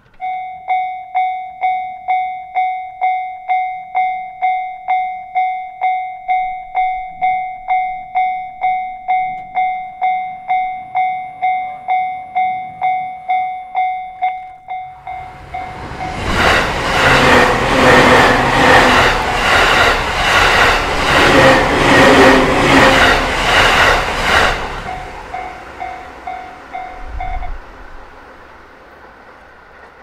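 Japanese railway crossing alarm starts up, a rapid electronic ding repeating a little over twice a second. About fifteen seconds in, a JR Narita Line train passes over the crossing, and its wheels clatter loudly and rhythmically over the rail joints for about nine seconds, drowning out the alarm. After the train clears, the ding is heard faintly for a few seconds more and then stops.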